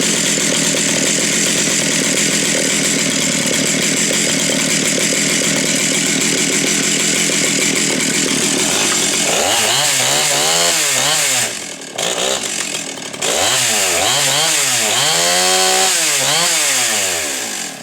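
Stihl 038 Magnum two-stroke chainsaw running at a high, steady speed, then revved up and down several times, dipping briefly about twelve seconds in, before it stops near the end.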